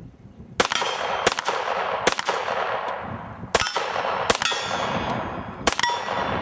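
Six gunshots over about five seconds, unevenly spaced, each followed by the clang and ringing of steel target plates being hit.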